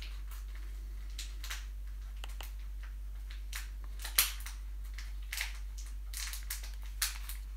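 Small plastic clicks of TV remote-control buttons pressed now and then while navigating, with a sharper click about four seconds in and another near the end, over a low steady hum.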